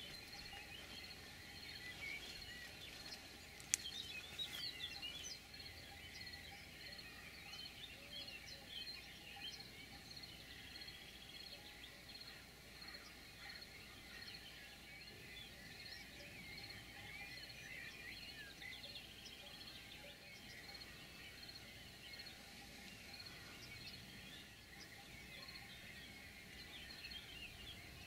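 Faint outdoor birdsong: several small birds chirping and singing, with a thin steady high tone underneath. A single sharp click about four seconds in.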